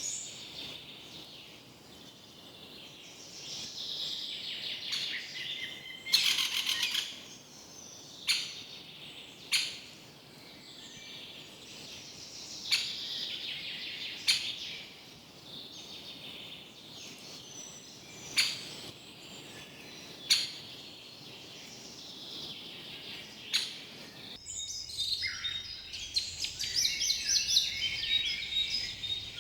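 Several wild birds singing and chirping in a forest, broken by a few short sharp clicks every few seconds that are the loudest sounds. About five seconds from the end the birdsong turns busier and louder, over a faint low rumble.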